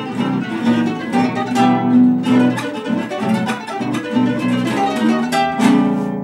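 Three classical guitars playing a gato, an Argentine folk dance, together in plucked parts; near the end they strike a final chord together and let it ring out.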